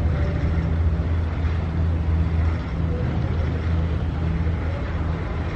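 Steady low mechanical hum over a rumble, from a nearby motor or engine running without change.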